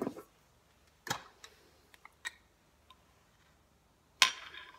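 A few light, separate clicks and taps of kitchen items being handled, with a louder knock and a brief rustle near the end.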